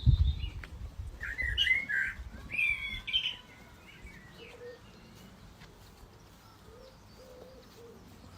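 Low thumps for about a second, then a quick run of high, wavering chirps lasting about two seconds, after which it goes faint.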